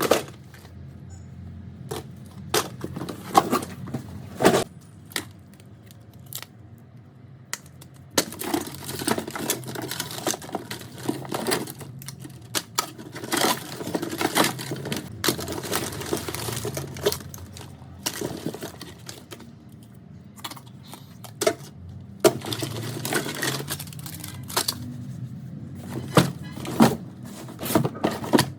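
Small tools and iPhone 4 parts clicking, tapping and scraping on a work surface during disassembly. Sharp clicks come throughout, with longer stretches of scraping about eight to seventeen seconds in and again a little after twenty-two seconds.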